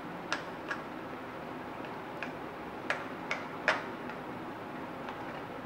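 A spoon clinking against a glass mixing bowl while stirring cake batter: a handful of sharp, irregular clinks, the loudest about three and a half seconds in, over a steady background hiss.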